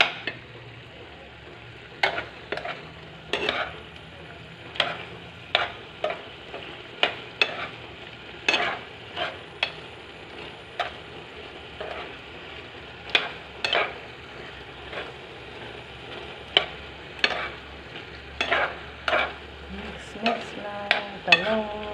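Vegetables sizzling in a frying pan over a gas flame while a spoon stirs them, scraping and clinking sharply against the pan every second or so over a steady hiss.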